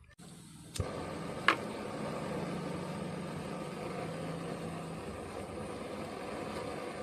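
Small backpacking gas stove: two sharp clicks early on, then the burner runs with a steady, even rushing hiss.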